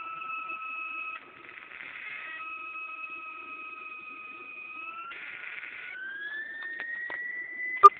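Flyback-transformer plasma arc, driven by an IRFP460 MOSFET and a function generator, singing a steady high tone that drifts slightly down. It twice breaks into a rough noisy buzz, then glides up in pitch. A single sharp loud snap comes near the end.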